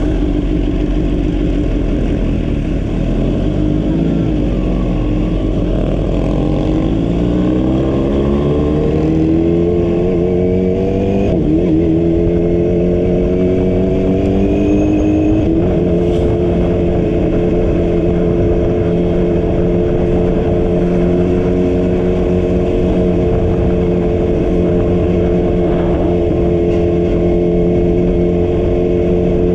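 Vehicle engine accelerating, its pitch rising, dropping at a gear change about eleven seconds in, rising again, then holding steady at cruising speed for the second half.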